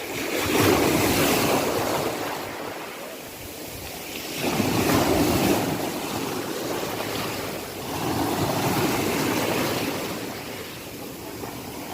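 Sea waves washing in, about three surges, each swelling up and fading away.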